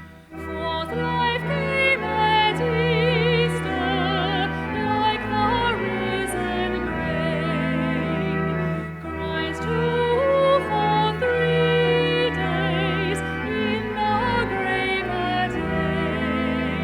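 Slow classical music: a melody sung or played with wide vibrato over long-held low bass notes.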